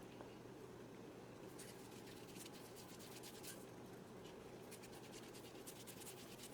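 Faint, repeated scratchy rubbing strokes of hands rolling flour dumpling dough into Jamaican spinners, starting about a second and a half in.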